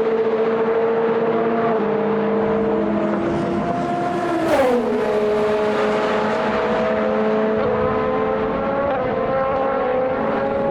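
Several race car engines running at speed at once, their notes overlapping. About halfway through one car passes close by, its pitch dropping sharply as it goes. The engine notes then climb slowly as the cars accelerate.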